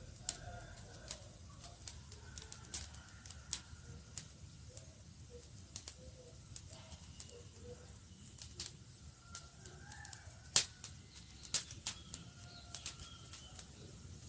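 Campfire crackling: wood popping and snapping in irregular sharp clicks, one louder pop about ten seconds in, over a low steady rumble of the flames. Faint wavering whistling tones come and go.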